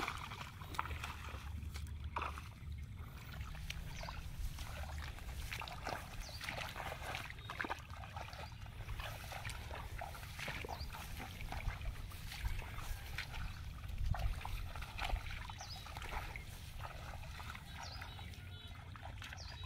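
Footsteps wading through shallow water among rice plants: irregular splashes and sloshing, over a steady low rumble.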